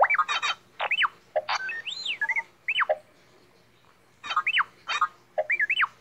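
R2-D2 droid beeps and whistles: quick chirps, several falling whistle glides and one rising-then-falling whistle, with burbling trills between them and a pause about halfway through. It is the droid's chattering reply to the question of what it wants to watch on TV.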